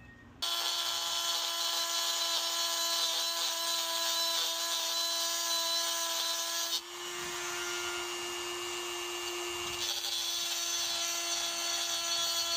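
Handheld rotary tool switched on about half a second in, running at a steady high whine while its bit grinds out the hammer-adjustment channel of the aluminum rifle chassis. About seven seconds in the sound dips briefly, then turns rougher and hissier for a few seconds before settling back to the steady whine.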